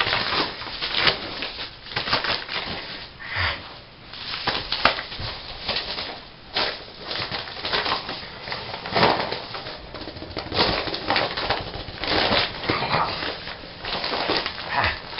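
Plastic bubble mailer crinkling and rustling in irregular bursts as it is shaken and swatted at by a kitten.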